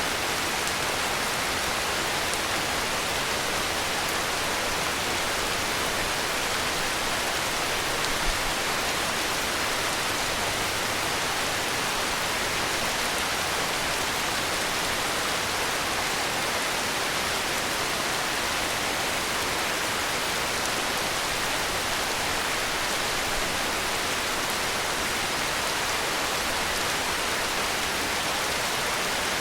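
Heavy rain falling steadily, an even hiss that does not change, with one brief low knock about eight seconds in.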